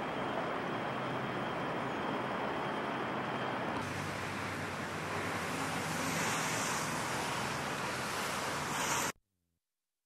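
Steady outdoor noise of wind on the camcorder microphone with distant traffic. It grows brighter about four seconds in and cuts off suddenly about nine seconds in.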